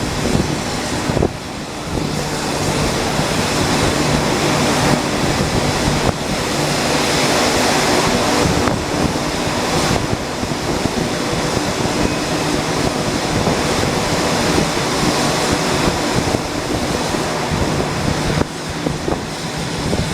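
Loud, steady rushing noise of a moving train, with wind on the microphone.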